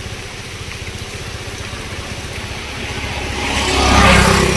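Motorbike engine approaching and passing close by, getting louder to a peak about four seconds in.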